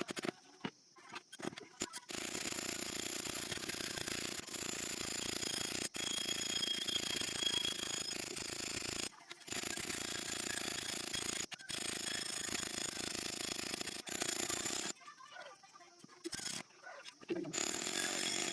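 Metal steadily ground or scraped on a hand-forged sickle blade, a continuous rasping that stops briefly about nine and eleven seconds in. It fades to scattered, quieter scraping in the last few seconds.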